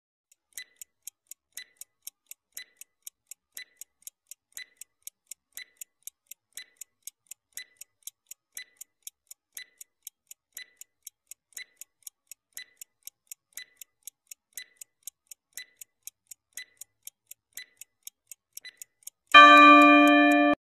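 Countdown-timer ticking sound effect: light, even clock ticks, about four a second with a slightly stronger tick each second. Near the end a loud steady tone of about a second sounds as the time runs out.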